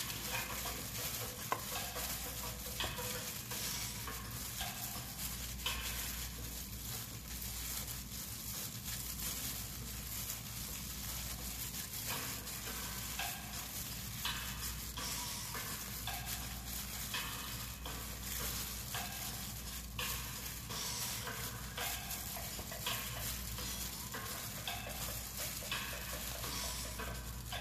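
Gloved hands squishing and turning pieces of meat in a bowl of wet marinade: irregular wet squelching with the crinkle of disposable plastic gloves, over a low steady hum.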